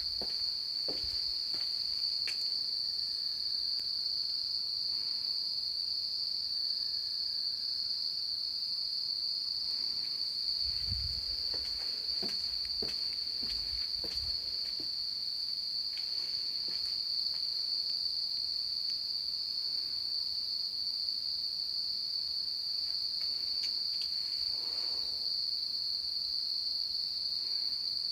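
Insects calling at dusk: a loud, steady, high-pitched drone that never breaks.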